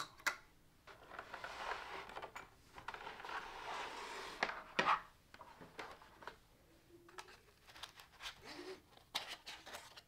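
Quiet handling noises as a cut zip tie and a block of packing foam are pulled off a 3D printer's toolhead: soft rustling and scraping for a few seconds, with scattered clicks and taps.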